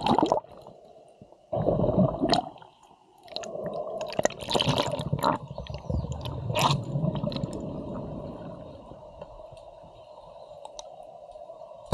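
Water splashing at the surface, then muffled underwater bubbling and gurgling with a steady hum and scattered clicks, heard through a microphone under the water of a swimming pool.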